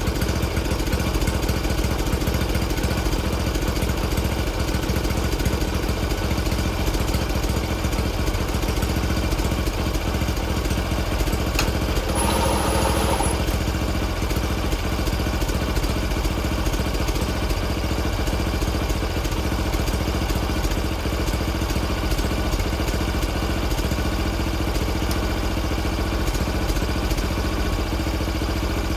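Kobelco SS1 mini excavator's engine running steadily at idle, just started with a jump pack on a dead battery.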